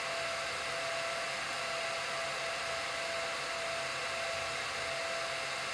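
Small server's cooling fans running steadily: an even whooshing hiss with a faint constant whine.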